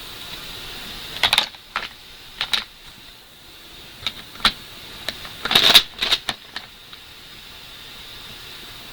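Irregular light clicks and taps of small hard objects being handled, some single and some in quick little clusters, over a steady faint hiss.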